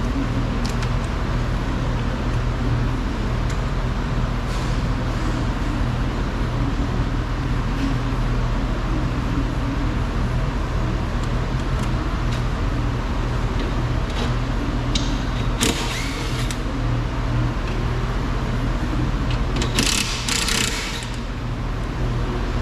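A steady low machine hum, like an engine running. Two brief hissing, whirring bursts come about 16 s and 20 s in, with a few light ticks between.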